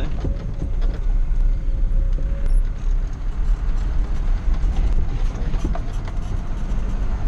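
Mazda T4000 truck's engine and road noise heard from inside the cab while driving: a steady low drone with a rushing hiss above it.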